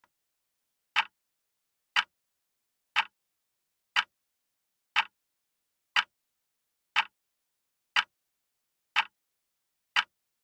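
Countdown timer sound effect ticking once a second, ten short ticks as the count runs down to zero.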